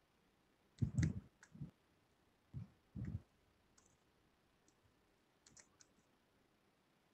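Computer mouse clicking: several short, scattered clicks, with a few soft low thumps at about one and three seconds in that are the loudest sounds.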